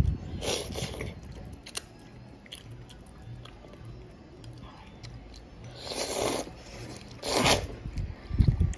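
A child slurping rice noodles and tomato soup from a bowl, with chewing between slurps: a short slurp about half a second in, then two louder ones about six and seven and a half seconds in.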